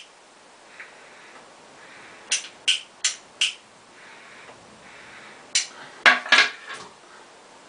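Tobacco pipe being lit with a lighter: four quick puffing draws on the pipe stem about two to three and a half seconds in. Near the end comes a breathy exhale of smoke.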